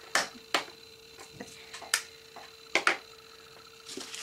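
Sharp clicks and taps from diamond painting supplies (scissors, small plastic drill containers) being handled on a tabletop, about six at irregular intervals with a close pair near the end. A faint steady hum sits underneath.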